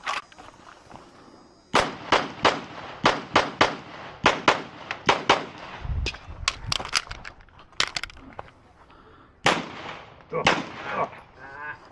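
9mm pistol fired rapidly, about twenty shots, mostly in quick pairs and triples with short pauses between strings.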